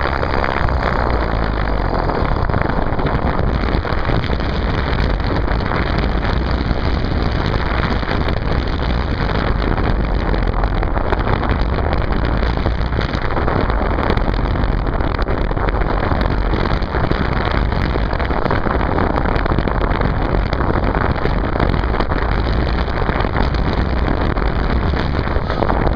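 Steady, loud rush of an RC plane in flight, heard from a video camera taped to the airframe: wind over the microphone mixed with the plane's motor, with no clear pitch and no break.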